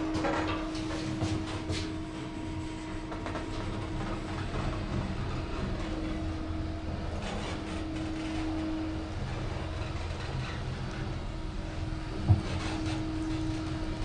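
Passenger lift car travelling, heard from inside the car: a steady low rumble with a constant hum, and a single short thump near the end.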